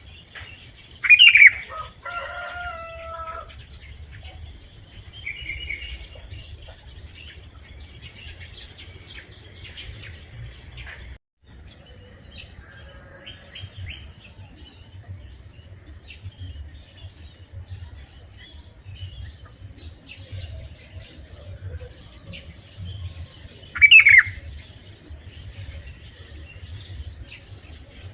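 Sooty-headed bulbul (kutilang) giving two loud, sharp calls, about a second in and again near the end; the first is followed by a short run of lower notes. Under it runs a steady high-pitched insect drone that drops out briefly midway.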